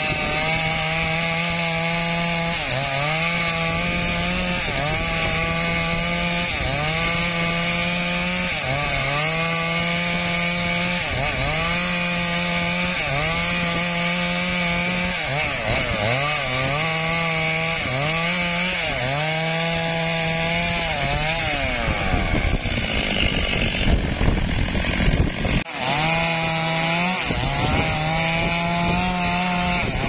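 Two-stroke chainsaw running at full throttle while cutting through a felled teak log, its engine pitch dipping and recovering every couple of seconds as the chain bites into the wood. About three quarters of the way through, the sound turns rougher and louder, drops out for a moment, then the saw picks up again.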